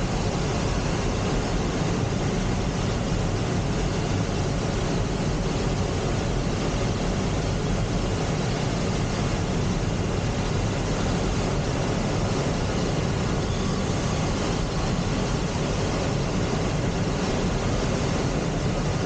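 Steady rush of air streaming over a glider in flight, heard inside the closed cockpit with no engine. It keeps an even level, with no breaks or sudden sounds.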